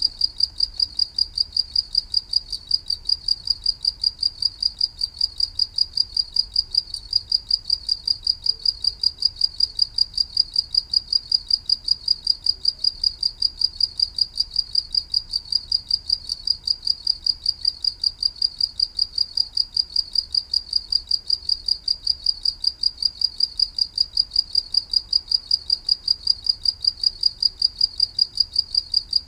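A cricket chirping steadily in an even, fast rhythm, about three high-pitched chirps a second, without a break.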